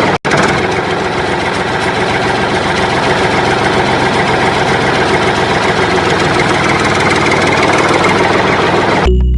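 Engine running steadily at idle, dropping out for an instant just after the start.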